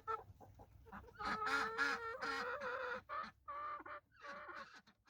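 Hens calling: a run of short calls, a long drawn-out call in the middle, then more short calls. The sound cuts off suddenly at the very end.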